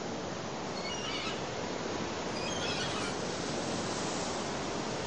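Steady rushing outdoor noise, even and unbroken, with a few faint high chirps about one second in and again near three seconds.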